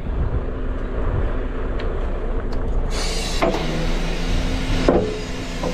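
Truck diesel engine running to drive a truck-mounted loader crane's hydraulics as the crane is started by remote. About three seconds in, a loud hiss and a steady hum set in as the hydraulic system comes on, with a couple of clunks.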